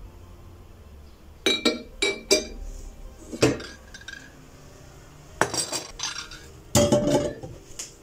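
Hard objects clinking and clattering in several short clusters, some with a brief ringing after the knock.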